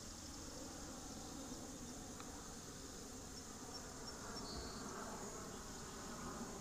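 Outdoor ambience of insects chirring steadily in a high, even band, over a low background rumble.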